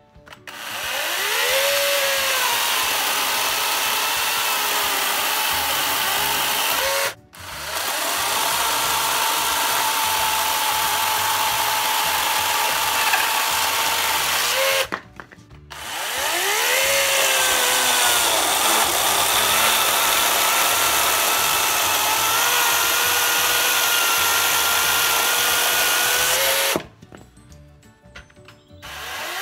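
Toro PowerPlex 40-volt brushless battery chainsaw running in three long bursts, each starting with a quick rising whine as the motor spins up, then holding a pitch that wavers and sags as the chain cuts through wood, with short pauses between the cuts.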